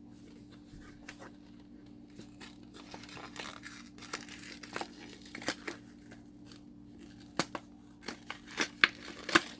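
Packaging being torn open and crinkled by hand: irregular crackles and rips, coming thicker and louder toward the end.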